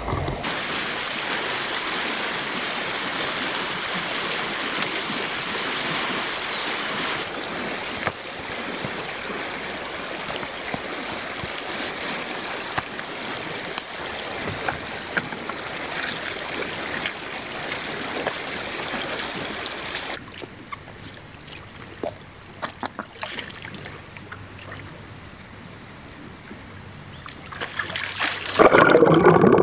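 Steady rush of flowing river water, dropping to a quieter trickle with a few scattered knocks after about twenty seconds. Near the end, loud splashing as a person in a wetsuit plunges into the river.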